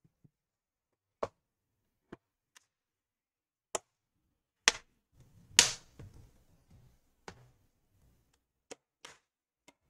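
Plastic bottom cover of a Dell Inspiron 17 laptop being pressed onto the chassis, its clips snapping into place: a run of irregular sharp plastic clicks and taps, the loudest a little past the middle, followed by a short stretch of handling noise.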